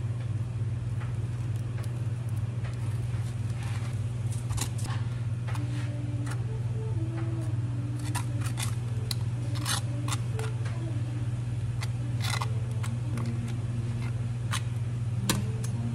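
A metal spatula scraping and clicking as cream is spread across a waffle, a few scattered strokes, over a steady low machine hum.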